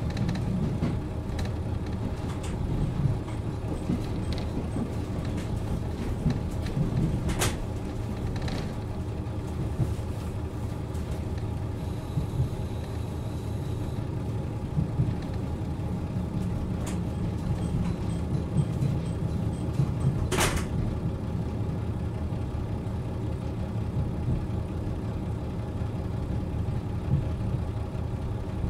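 JR Hokkaido KiHa 40 series diesel railcar standing with its diesel engine idling steadily. A few brief sharp sounds break in, the longest a half-second hiss about twenty seconds in.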